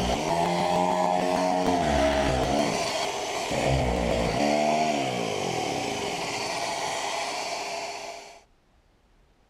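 Handheld electric power tool with a dust hose running against a plywood edge. Its motor pitch sags and recovers several times as it is pushed along the wood, then the sound fades out about eight seconds in.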